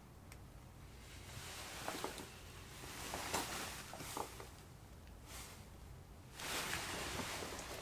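Faint rustling with a few light knocks, like camping gear being handled and unpacked; the rustling swells near the end.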